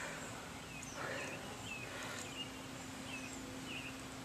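Small bird chirping over and over, short high chirps about twice a second, over a steady hiss of shallow creek water.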